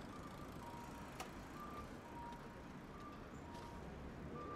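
Audible pedestrian crossing signal sounding a repeated two-note electronic chime, a higher note then a lower one, a pair about every one and a half seconds, over low street traffic noise. A single sharp click about a second in.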